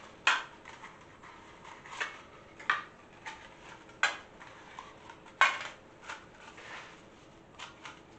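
Aluminium foil muffin cups being pulled off a stack and set down one by one in a metal baking tray: a series of light, irregular clinks, about ten in all.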